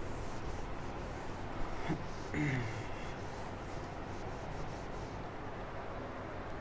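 Felt whiteboard duster wiping across a whiteboard in faint repeated rubbing strokes. A short low vocal sound, a murmur or throat noise, comes about two and a half seconds in.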